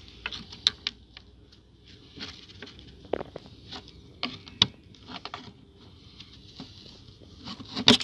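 Gloved hands handling the plastic radiator and coolant expansion tank of a BMW E39: scattered small clicks, taps and rubbing, with a louder cluster of clicks near the end.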